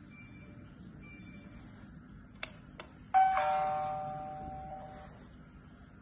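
Wi-Fi video doorbell's electronic chime: a single bright, bell-like ding of several tones that starts suddenly about three seconds in and fades out over about two seconds. Before it come two faint short high beeps and two light clicks.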